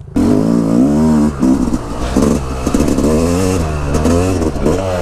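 Yamaha dirt bike engine being ridden hard, revving up and down over and over, its pitch rising and falling with the throttle.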